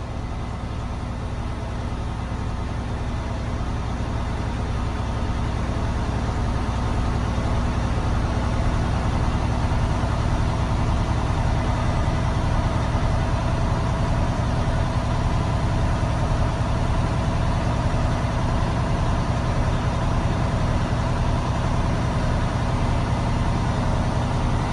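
Heavy truck diesel engine running steadily at a raised idle, heard from inside the cab, growing a little louder over the first few seconds and then holding steady. The air system has just reached governor cut-out, so the compressor has stopped building pressure.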